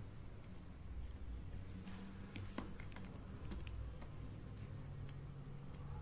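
Faint, irregular clicks and taps of hard plastic as the snap-fit cover of a neckband Bluetooth headset's control box is prised off and separated by hand. Most of the clicks fall in the second half.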